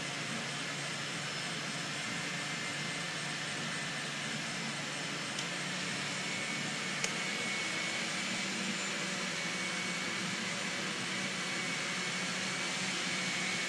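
Three Osterizer kitchen blenders running together at 'whip' speed, a steady motor whir as they churn liquid coolant mixtures. A thin high whine joins about six seconds in, and there is one brief click about seven seconds in.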